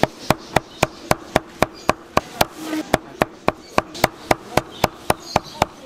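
Knife chopping through pork offal onto a wooden cutting board in a fast, steady rhythm of about four sharp knocks a second, with one brief pause near the middle.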